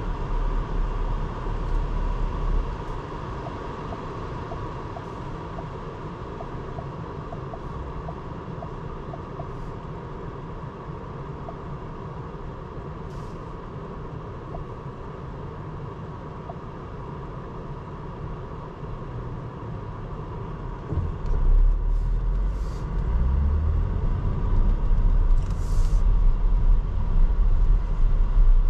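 Porsche Cayenne (2024) driving, a steady engine and road rumble that swells sharply about two-thirds of the way through and stays louder to the end.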